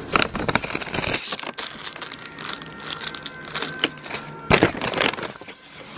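A shopping bag rustling and crinkling right by the microphone as a hand reaches in and handles it, with a sharper crackle about four and a half seconds in.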